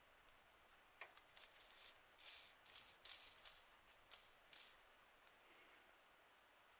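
A short, irregular flurry of light clicks and rattles, like small hard parts being shaken or handled, lasting a few seconds and then stopping.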